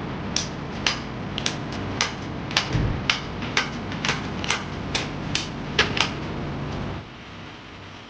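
A series of sharp clicks or taps, about two a second, over a steady low hum; the hum drops away about seven seconds in.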